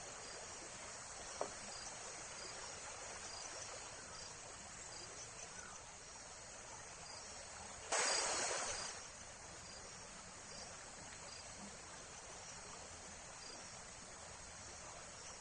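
Outdoor ambience of a steady insect chorus, with faint short high chirps repeating at intervals. About eight seconds in, a sudden loud burst of rushing noise starts sharply and fades out over about a second.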